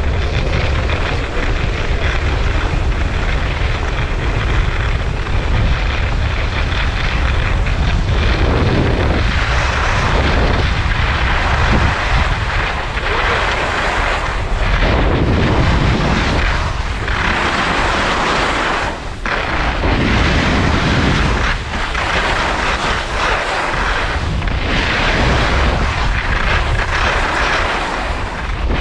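Wind buffeting the microphone: a loud rushing rumble that swells and dips.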